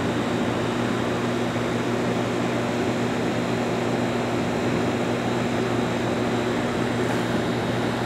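Outdoor water-heating heat pump running steadily: an even low hum with the rush of its fan, as the unit heats the water passing through it.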